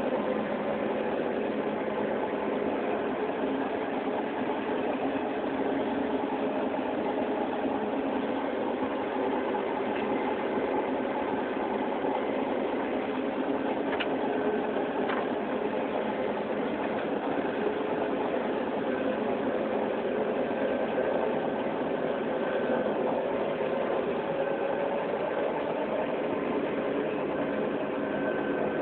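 John Deere combine running steadily while harvesting corn: a constant engine and machinery sound with no change in speed.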